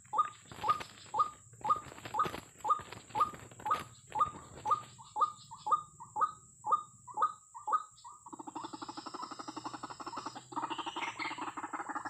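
White-breasted waterhen calling: a short, hooked note repeated about twice a second. About eight seconds in it changes to a fast, continuous croaking chatter.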